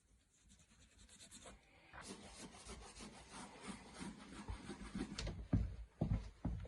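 Colour-matched putty being rubbed and scraped into small drilled holes in a wooden floor: a run of quick scraping strokes, faint at first and louder from about two seconds in, with a few low knocks near the end.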